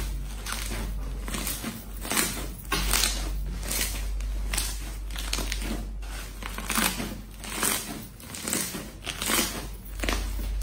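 Slime being squeezed and pressed by hand, giving irregular crackles and sticky pops.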